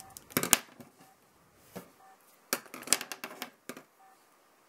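A pen clicking and clattering against fingers and a hard surface during pen-spinning practice: a quick cluster of clicks about half a second in, then a longer run of knocks about two and a half seconds in.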